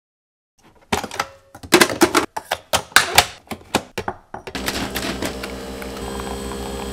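Nespresso capsule coffee machine being loaded and set going: a quick run of sharp clicks and clacks, then from a little past halfway the machine brewing with a steady hum and a fast pulsing buzz as coffee pours into a ceramic mug.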